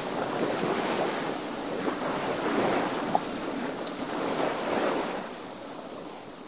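Sailing boat moving through the water: waves washing and splashing along the hull with wind on the microphone, swelling every couple of seconds. A small click about three seconds in; the sound fades down near the end.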